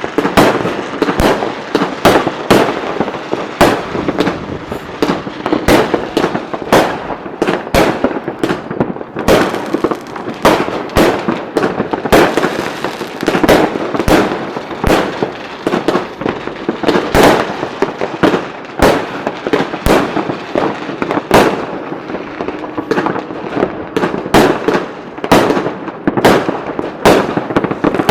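Fireworks display: a dense, irregular run of loud bangs from shells bursting, several a second, over continuous crackling.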